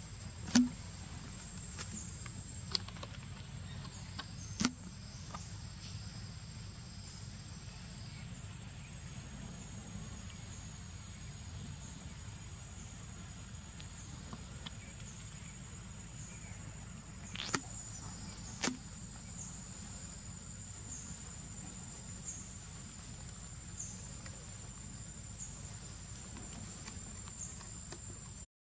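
Steady high-pitched insect drone, with a few sharp clicks: the loudest about half a second in and two more close together just past halfway.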